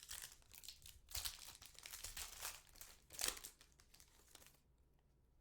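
Foil trading card pack being torn open and crinkled by hand, a run of crackling tears and rustles with a sharper one about three seconds in, then it stops.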